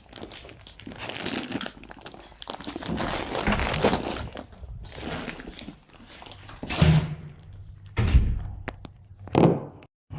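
Parcel packaging rustling and crinkling as it is handled, with a few heavier thumps in the second half.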